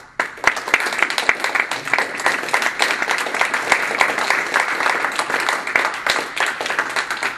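Audience applauding: dense, steady clapping that starts abruptly.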